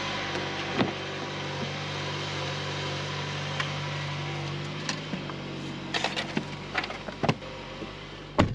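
Car engine idling with a steady low hum, with scattered sharp clicks and knocks that bunch together in the second half.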